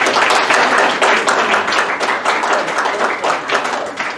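A small audience applauding, individual claps distinct, at the end of a jazz number.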